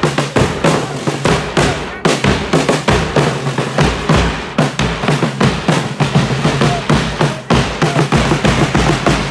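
Marching band drum line playing snare drums and a bass drum in a fast, dense, steady beat, with deep bass-drum thuds among the rapid snare strokes and a low held note underneath.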